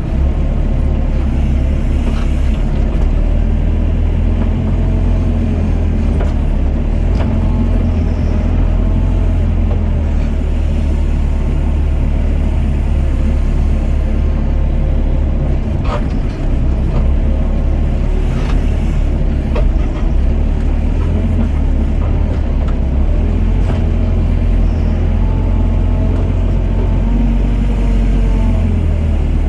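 Doosan DX55 mini excavator's diesel engine running steadily under working load, with a faint whine rising and falling as the hydraulics swing the bucket to bail water. Two sharp knocks come a little past halfway.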